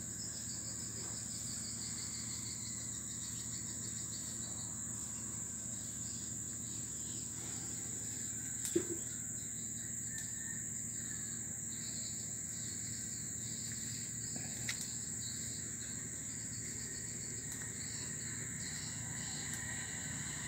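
Crickets shrilling steadily in one high, continuous tone, with a pulsing chirp underneath in the first few seconds. A brief knock comes a little before halfway, and a fainter one about two-thirds through.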